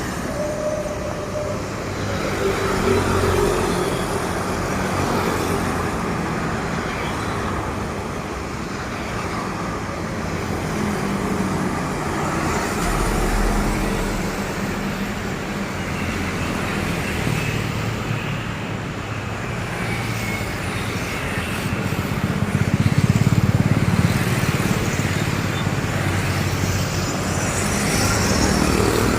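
Road traffic with heavy trucks passing: steady engine rumble and tyre noise, swelling as a louder vehicle goes by about four-fifths of the way through.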